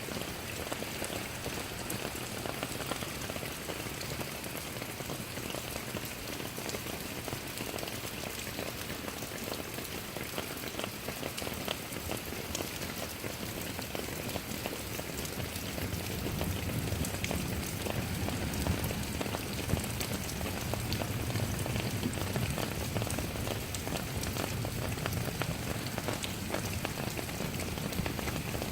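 Steady rain falling, with many separate drops ticking against a surface. A low rumble swells in about halfway through and makes the sound a little louder.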